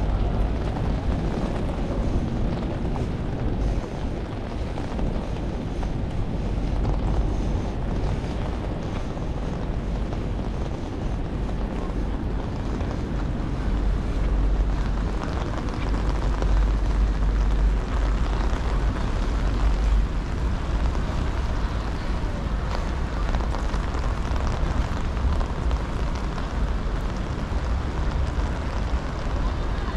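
Wind buffeting an action camera's microphone: a steady low rumble that swells in gusts, heaviest around the middle, over a constant hiss of rain and wet outdoor noise.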